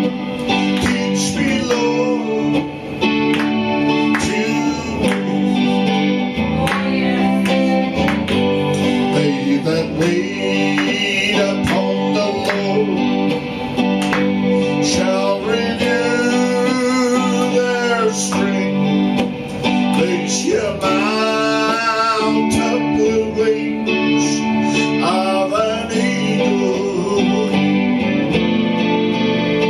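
A man singing a gospel song to acoustic guitar, strummed chords under a sung melody.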